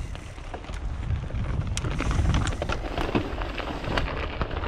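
Mountain bike riding down a rocky, rooty dirt trail: a steady low rumble of tyres over dirt and rock, broken by frequent sharp knocks and clatter from the bike.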